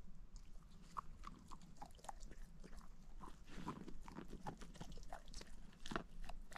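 A dog crunching dry kibble, a steady run of irregular short crunches and clicks as it chews.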